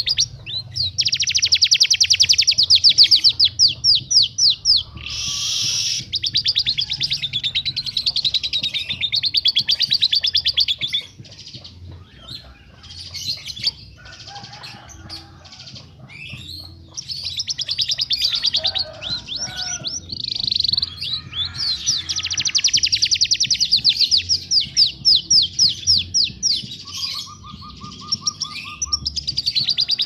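Small songbirds singing loud, sharp, harsh song: long runs of very rapid, high-pitched trills and chattering, with a quieter stretch of scattered chirps in the middle and a short, lower, rapid buzzy trill near the end.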